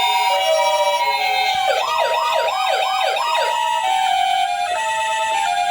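Electronic ambulance siren sound: a quick rising-and-falling wail cycling about five times, then switching about two seconds later to a steady two-tone hi-lo alternation. A short run of plain stepped electronic notes comes before it.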